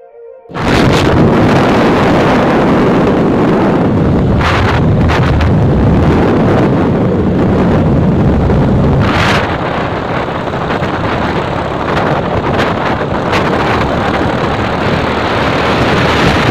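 Wind buffeting the microphone on a moving motor scooter: a loud, steady rush, with the scooter's engine and road noise underneath. It starts suddenly about half a second in.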